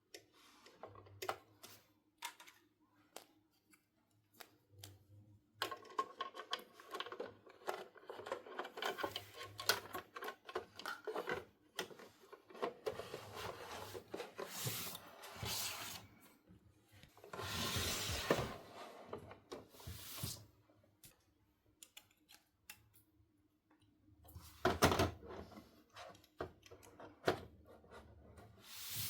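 Hands handling small plastic toy pieces and packaging: rubbing and rustling with scattered clicks and taps. Louder bouts of rustling come a little past halfway and again near the end.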